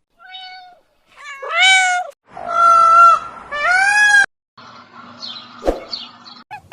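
A bird giving four long, wailing, meow-like calls, each rising in pitch and then holding; the first is quiet and the other three loud. Fainter scrappy sounds and a single sharp knock follow near the end.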